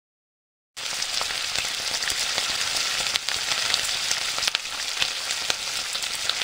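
Food sizzling and crackling in hot oil: a steady sizzle with scattered pops that starts about a second in, after a brief silence.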